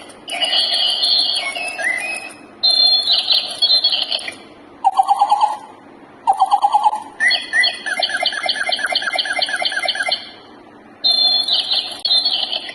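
Electronic bird toy playing recorded bird chirps and songs as a run of short clips, each starting and cutting off abruptly, with brief pauses between them.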